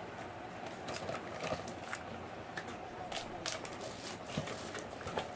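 Packaging being handled while a power supply's box contents are taken out: scattered light clicks and rustles, with a louder knock at the very end.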